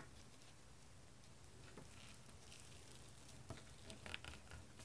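Near silence with faint handling sounds: a small plastic toy rolling pin pressing play dough flat on a plastic toy tray, with a few light clicks about three and a half to four seconds in.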